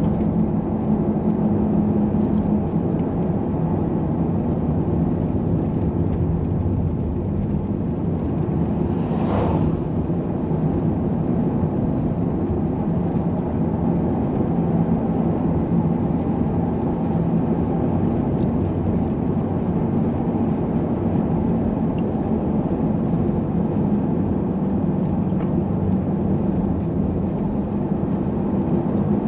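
Steady road noise inside a moving minivan: tyre and engine drone with a low hum, and a brief hiss about nine seconds in.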